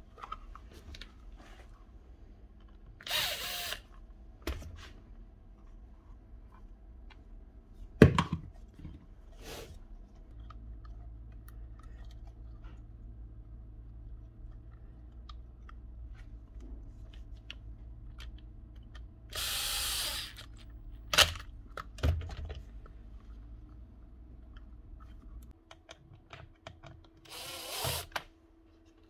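A handheld power tool run three times in short bursts of about a second each while old socket bolts are removed and new sockets fitted to a site-transformer case. Between the bursts come small handling clicks and one sharp knock about 8 seconds in, the loudest sound.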